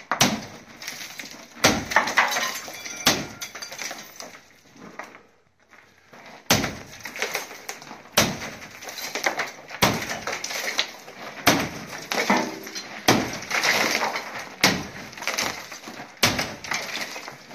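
Repeated overhead hammer blows smashing charred plaster off a ceiling arch, about one strike every second and a half with a pause of a few seconds near the start, each followed by broken pieces clattering down.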